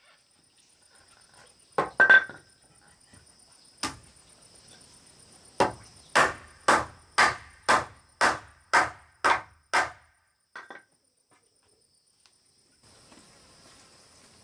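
Hammer blows on a wooden framing beam: a few separate strikes, then a steady run of about nine blows, about two a second, that stops about ten seconds in.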